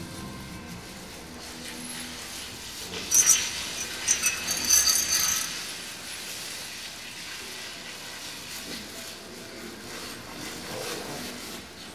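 Metal obstetric calving chains clinking and rattling as they are handled, in a cluster of sharp clinks lasting about two seconds a few seconds in.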